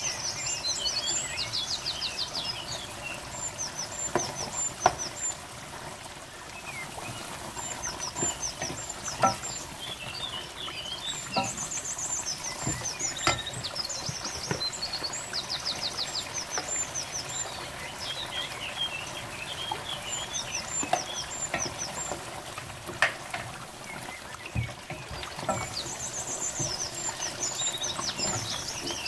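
Wooden spoon stirring chicken and tomato gravy in an aluminium pot, knocking sharply against the pot now and then, over a steady hiss from the simmering pot. Birds chirp in bursts of quick, high repeated notes several times.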